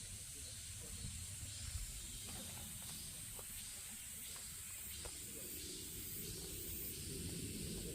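Faint forest-trail ambience: a steady high hiss over a low rumble, with a few soft ticks.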